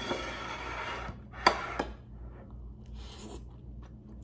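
A person taking a bite of food: a breathy rush of air, a sharp click with a short ring about a second and a half in, then soft chewing with small mouth clicks.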